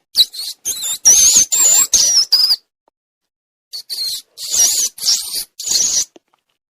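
High-pitched rodent squeaks: a quick run of short squeals that waver in pitch, a silent gap of about a second, then several more.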